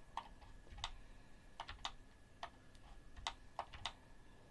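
Computer keyboard and mouse clicking: about eight short, irregular clicks as keys and buttons are pressed.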